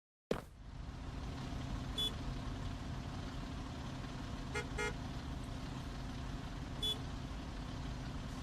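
Steady low rumble, like a running engine, with a few short high pitched toots: one about two seconds in, a quick pair near the middle and one more near the end.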